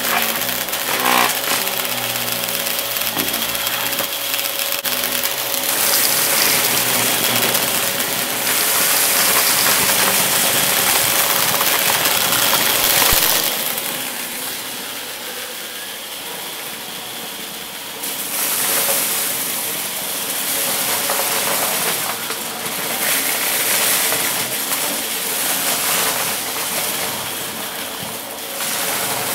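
Dyson ball upright vacuum running with a steady motor whine and a rushing hiss, crunching and rattling as it sucks up piles of confetti, glitter and small beads from a rug. The hiss swells and fades as it is pushed over and off the debris, and goes quieter for a few seconds midway.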